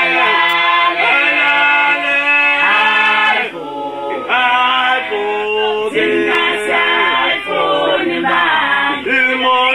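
A small group of men and women singing together unaccompanied, several voices holding long notes in harmony, with a short break between phrases about three and a half seconds in.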